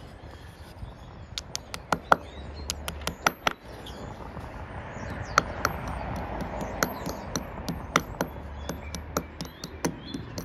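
Hammer tapping plastic wall plugs flush into drilled holes in the mortar of a brick wall: a long run of sharp, light taps, some in quick clusters.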